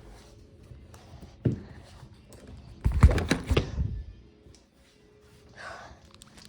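A few thumps and knocks: one about a second and a half in, then a loud cluster of them about three seconds in.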